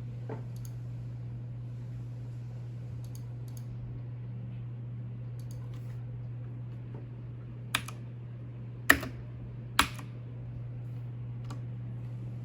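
A few scattered key clicks from a mechanical keyboard with blue Outemu clicky switches, the three loudest about eight to ten seconds in, over a steady low hum.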